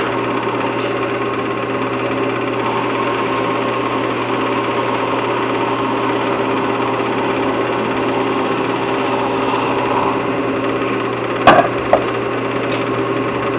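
Wood lathe running with a steady hum while a turning tool cuts the spinning wood. Two sharp knocks come close together near the end.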